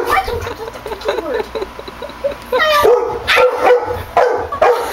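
A yellow Labrador-type dog whining and yelping, then giving about four short, sharp barks in the last two seconds.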